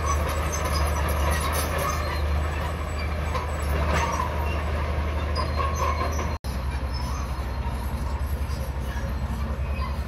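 Komatsu D31P crawler bulldozer's diesel engine running steadily under load as it pushes rock and soil with its blade, with the rattle of its steel tracks. The sound cuts out for an instant about six seconds in, then resumes with a quicker throb.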